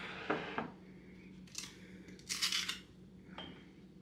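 Bottles and mugs handled on a kitchen countertop while drinks are mixed: a few light clicks early, then two short hissing sounds, the second one louder, and a small click near the end.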